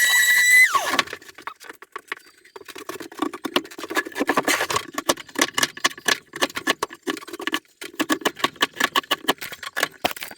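A high-pitched power tool whining steadily, then switched off and winding down under a second in. After a short lull comes a long run of fast, irregular scraping and clicking from hand work on wood.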